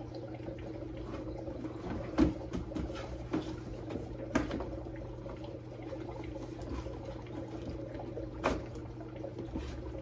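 Plastic canister filter parts being handled: scattered sharp clicks and knocks, the loudest about two, four and eight and a half seconds in, over a steady low hum.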